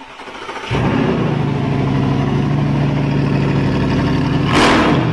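A motor vehicle engine running steadily, its pitch holding level, with a brief loud rushing burst near the end.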